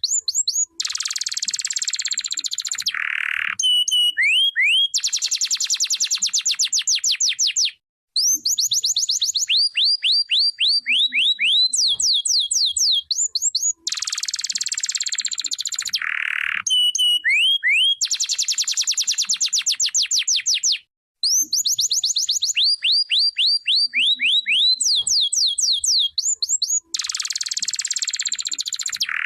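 Domestic canary singing: long runs of rapid rising whistled notes alternating with fast buzzy trills, the same song sequence repeating about every 13 seconds.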